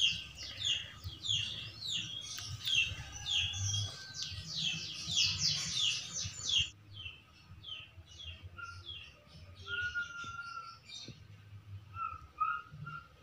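Birds chirping: a quick run of short, falling chirps, about two a second, that turns fainter and sparser about halfway through.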